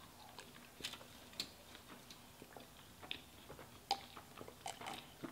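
Faint chewing of a cheeseburger, with scattered small wet clicks from the mouth.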